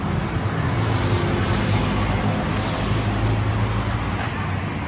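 City street traffic: a vehicle engine hums steadily under general road noise.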